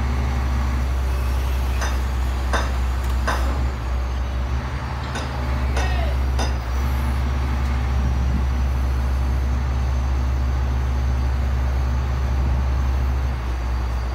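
Large diesel engine idling steadily with a low hum, with a few short, sharp clicks in the first six seconds or so.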